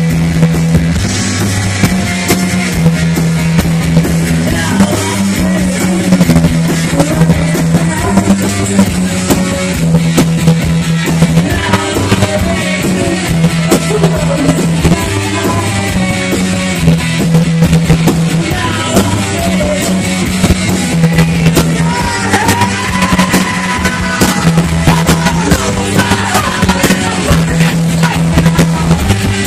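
Live rock band playing loud: electric guitars, bass guitar and drum kit, driven by a repeating riff in the bass.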